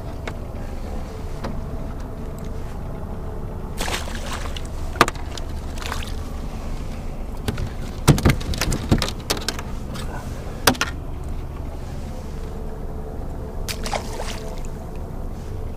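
Crappie being handled on the deck of a small plastic boat and released into the water: scattered knocks on the plastic hull, busiest and loudest about eight to nine seconds in, and a splash as a fish drops into the water near the end, over a steady low rumble.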